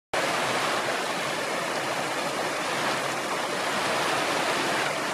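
Shallow mountain creek water rushing steadily over gravel and stones, heard close up, starting abruptly.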